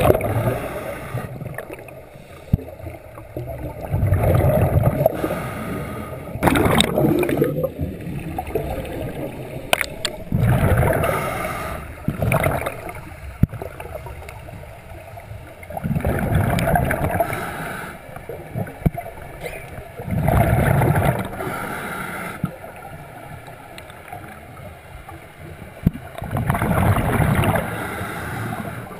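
Scuba diver breathing through a regulator, heard underwater: bursts of exhaled bubbles rumbling and gurgling about every four to six seconds, with quieter stretches between breaths.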